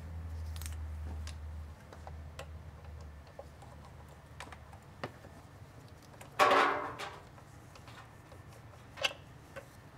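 Light metallic clicks and taps of loose transmission bell housing bolts being fished out and handled, with one louder clatter a little past halfway. A low hum stops about three seconds in.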